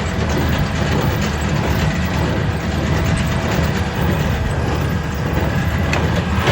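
Heavy diesel tractor engine running steadily under load, with a constant low rumble and machinery noise over it.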